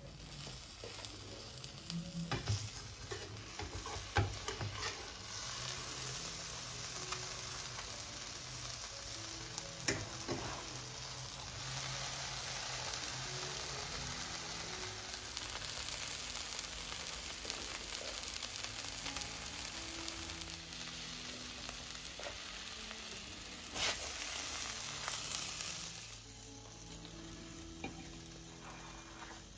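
Butter and egg sizzling in a frying pan under a folded egg-and-cheese tortilla, with a few sharp knocks of a slotted spatula against the pan in the first ten seconds. The sizzling drops away about four seconds before the end, as the tortilla comes out of the pan.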